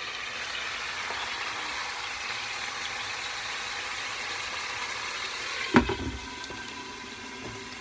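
Steaks frying in a pan, a steady sizzle. A single knock about six seconds in, after which the sizzle is quieter.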